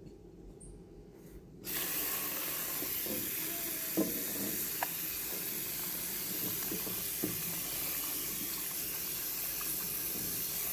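Tap water running into a stainless steel sink, starting about a second and a half in, as a cucumber and a carrot are rubbed and rinsed under the stream. A few light knocks partway through.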